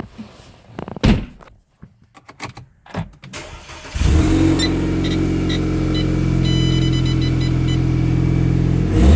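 Audi A4 B8.5 engine started after a few clicks: it catches suddenly about four seconds in and settles into a steady idle, with a short rev near the end. A few electronic chime tones sound over the idle.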